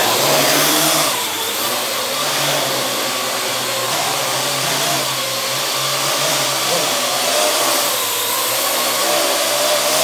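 Parrot AR.Drone quadcopter's four electric motors and propellers whining as it lifts off the floor and hovers, the pitch wavering up and down as the motor speeds adjust.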